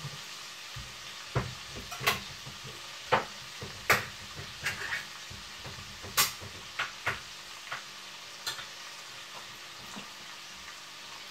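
Minced meat frying in a pan: a steady faint sizzle broken by irregular sharp pops and crackles, about a dozen in all.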